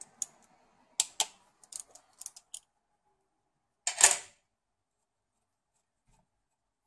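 Light clicks and taps of a small hand tool working at the wiring and connectors on the exposed valve body of a 5L40E automatic transmission, then one short, louder clatter about four seconds in.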